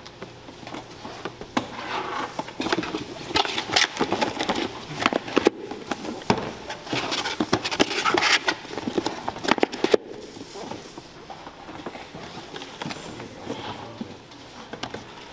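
Cardboard cake boxes being folded shut and handled on a stainless steel counter: a quick run of crackles, taps and scrapes, thinning to quieter handling after about ten seconds.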